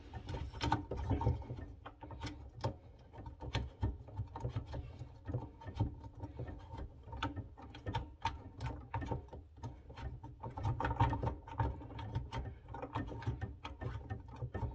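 Irregular clicks, taps and rubbing of a plastic wing nut being spun loose down a faucet's threaded shank by hand, with the hose and fittings knocking in the cramped space under the sink.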